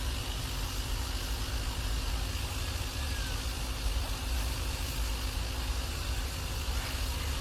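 A car engine running steadily with the accelerator held down by the driver's foot: an even, unchanging engine noise with a strong low rumble.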